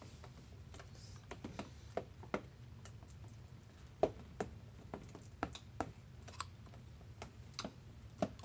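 A spoon stirring a gel-like glue-and-shampoo slime mixture in a clear plastic tub: faint, irregular light clicks and taps a few times a second as it knocks and scrapes against the tub, over a low steady hum.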